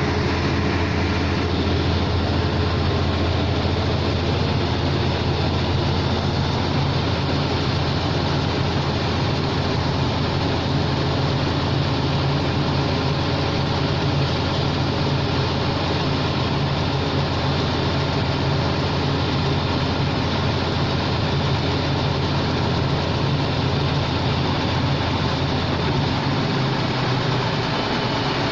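Engine of a 655 CFM portable air compressor running at a steady speed, with a deep, even hum. The low hum shifts slightly near the end.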